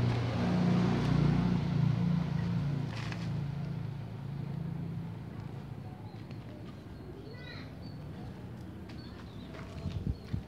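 A motor vehicle's engine hum, loudest in the first two seconds and fading away by about five seconds in. A bird chirps a few times about seven to eight seconds in, and two sharp knocks come near the end.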